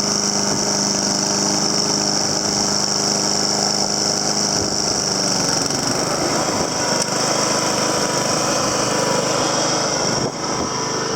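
Honda HRM215 lawn mower's GCV140 single-cylinder four-stroke engine running steadily with the blade spinning while it mows. The engine note shifts about halfway through, and there is a brief dip near the end.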